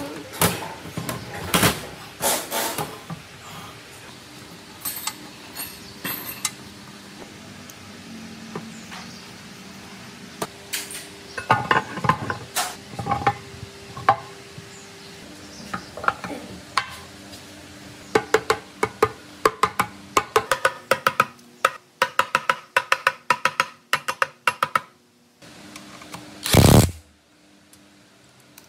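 Metal hand tools on a cast-iron engine block: scattered clinks and knocks, then a socket ratchet clicking in quick runs as the seal-housing bolts are tightened. Near the end comes one short burst of a pneumatic ratchet.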